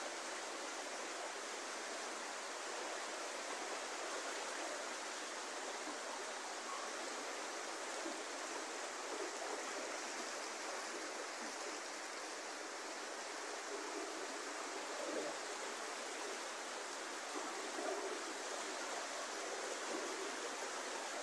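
Muddy floodwater rushing in a steady torrent: a flash flood after heavy rain, pouring across open ground and around the posts of a house on stilts.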